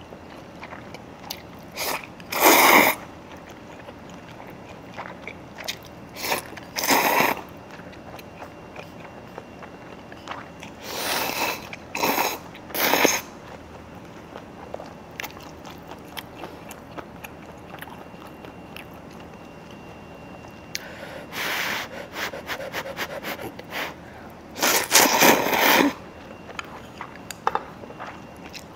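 Close-miked eating of Chinese food: quiet chewing, broken by about five loud noisy bursts up to a second long, near the start, in the middle and near the end.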